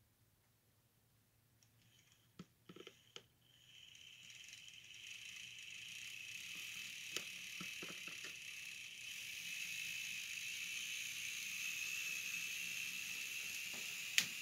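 Model train running on the track: a few clicks, then the locomotive's motor whir and the rattle of wheels on rail build up from a few seconds in and hold steady, with an occasional single click.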